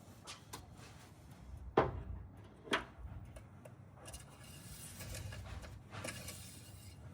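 Two sharp knocks a second apart amid light handling and rustling, from the engine oil dipstick being pulled from its tube and handled to read the level.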